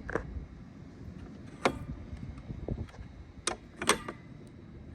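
Wooden gate and its latch hardware knocking and clacking as the gate is pushed and rattled: three sharp knocks, the last two close together. The latch is too loose to catch, so the gate swings open with a slight push.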